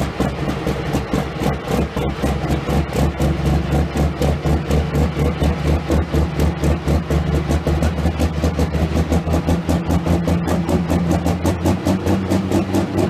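International 1066 pulling tractor's engine idling with a lumpy, pulsing beat, about four to five pulses a second.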